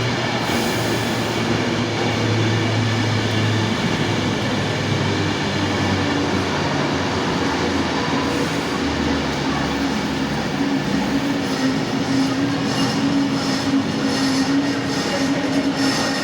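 Electric passenger train at a station platform, running steadily with a low hum that gives way to a higher steady whine in the second half.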